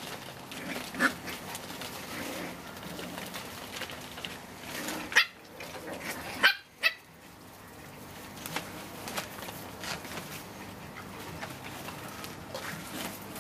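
Small puppies barking in short high yaps: one about a second in, then three more close together between about five and seven seconds in.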